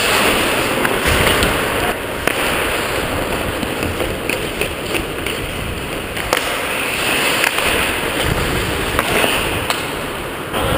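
Ice hockey play heard close up from a player's GoPro: a steady scraping rush of skate blades on ice, broken by several sharp, irregular clacks of sticks and puck.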